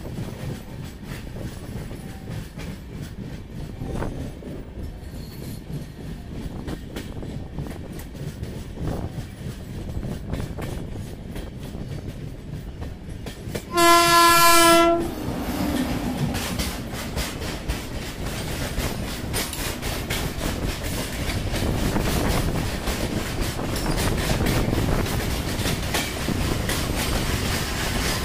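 Passenger train running at speed, heard from an open coach door: a steady rumble of wheels and air. About halfway through a locomotive horn sounds one loud, single-pitched blast of about a second. After it the rushing clatter grows louder as a freight train of open wagons passes on the next track.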